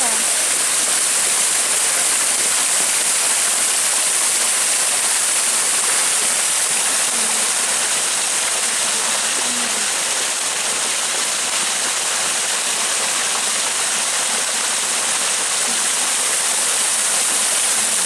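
Small spring-fed waterfall, water falling in several thin streams over a low rock ledge and splashing into a shallow pool: a steady, even rush of water.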